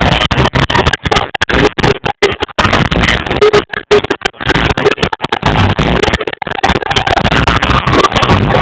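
Live reggae band playing, picked up by a phone microphone and badly distorted (horrible sound), with the audio cutting out in many brief gaps.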